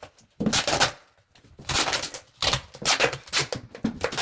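A plastic water bottle being handled and worked, heard as several short bursts of scraping and crinkling.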